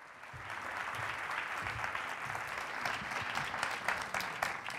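Audience applauding: the clapping builds quickly, holds steady, and begins to fade near the end.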